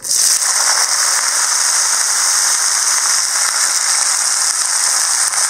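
Cut okra tipped into hot oil in a black kadai, setting off a loud, steady sizzle that starts suddenly.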